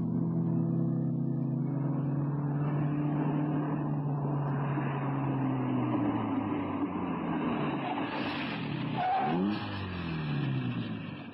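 Radio-drama sound effect of a car engine running steadily under road noise, its pitch sinking slowly. About nine seconds in it revs up in a few quick rising sweeps, then fades out.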